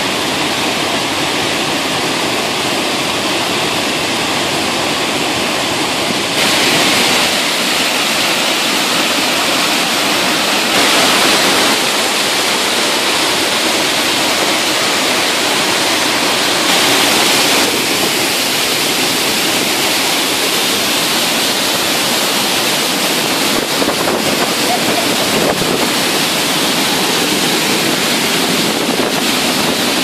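Sgwd yr Eira waterfall rushing steadily, heard close up and then from behind the curtain of falling water, with a few sudden steps in level.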